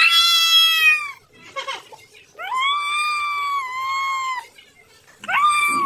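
A tabby cat giving three long, drawn-out meows, each held at a steady high pitch. The middle one lasts about two seconds.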